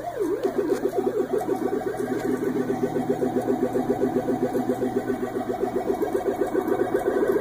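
An electronic siren sweeping up and down in pitch, switching about half a second in to a rapid warble that keeps going.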